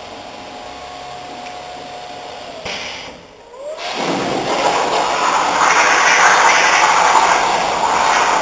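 Miller Spectrum plasma cutter: a steady whine stops about three seconds in. Then a rising whine and a loud rush of air build up and keep going.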